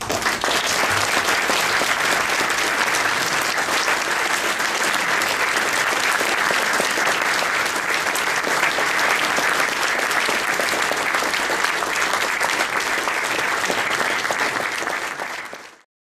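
Audience applauding, a dense, steady clapping that fades out near the end.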